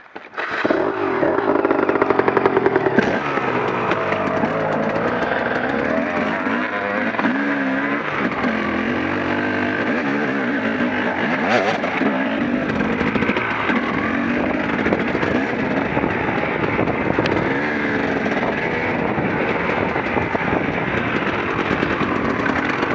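KTM EXC enduro motorcycle engine running while riding a rough dirt trail, its pitch rising and falling with the throttle. It starts up loudly about half a second in and keeps on with constant throttle changes.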